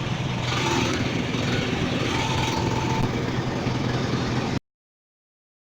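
An engine running steadily with a low hum under a rushing hiss. The sound cuts off abruptly about four and a half seconds in.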